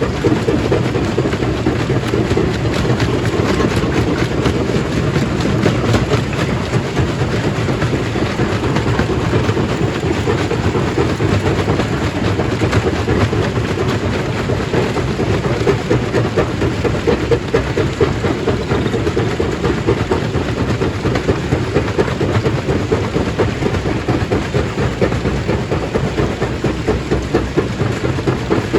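Stone crushing machine running, with rock rattling and grinding through it in a dense, continuous clatter.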